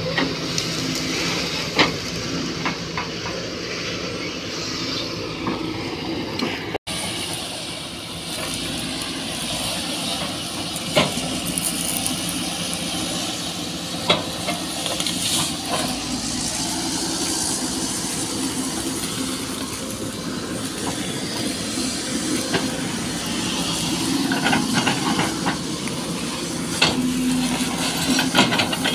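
Sany SY215C hydraulic excavator's diesel engine and hydraulics running steadily under load as it fells and uproots oil palms, with a few sharp cracks and knocks of palm trunks and fronds breaking.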